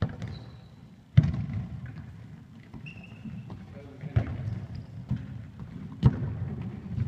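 A football being kicked in a large sports hall: sharp thuds at the start, about a second in (the loudest), around four seconds and again around six seconds, each echoing in the hall.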